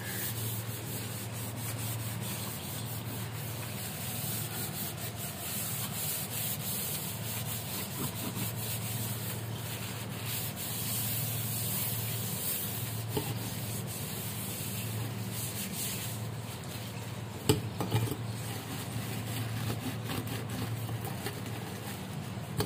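Stainless steel kitchen sink being scrubbed with cleaning powder and a crumpled plastic bag: a steady rubbing and scraping on the metal, with a few sharp knocks about three-quarters of the way through.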